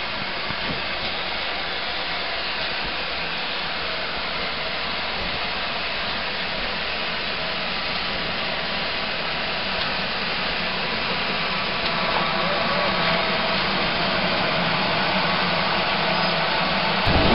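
Steam locomotive giving off a steady hiss of steam, with no exhaust beats, growing louder about two-thirds of the way through.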